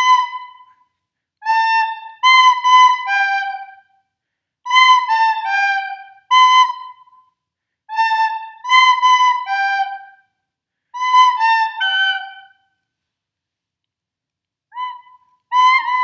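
Recorder playing short sight-read phrases built from the notes B, A and G, a few clean notes at a time, with short pauses between phrases and a longer pause near the end.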